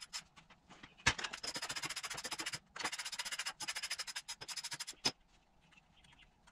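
Ratchet wrench clicking rapidly in runs with two short pauses as the screws holding the muffler on a Stihl FS55 trimmer are backed out to reach its spark arrestor, then one sharp click about five seconds in.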